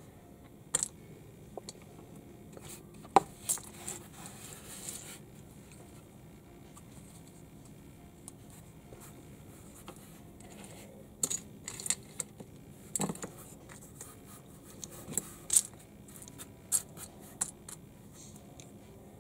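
Small plastic building bricks clicking and clattering as loose pieces are picked up and pressed together. The sharp clicks are scattered, with a soft rustle about four seconds in and a quieter spell, then a run of clicks in the second half.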